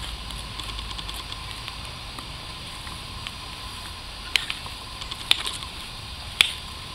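Hand trowel, brush and gloved hands clearing soil off a buried flat stone grave marker: soft scraping of earth, with three sharp clicks about four, five and six seconds in.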